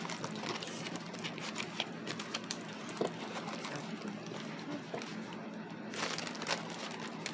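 Diamond painting canvas and its plastic cover sheet rustling and crinkling as they are rolled up and turned over by hand, with many small crackles.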